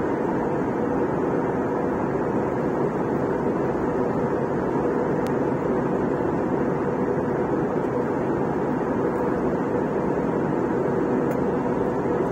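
Steady in-flight drone of an airliner cabin: engine and airflow noise, with a faint hum.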